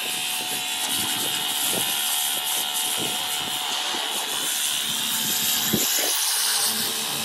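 High-pressure washer jet blasting a watermelon: a steady hiss of water under the pump's even motor drone, with irregular spatter as the jet cuts into the rind.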